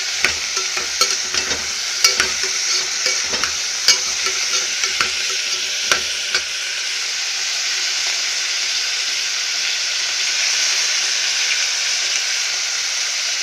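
Cubed brinjal frying in sesame oil in an aluminium pressure-cooker pot: a steady sizzle as the pieces soften. A metal spatula scrapes and clicks against the pot at irregular moments during the first half, then only the sizzle goes on.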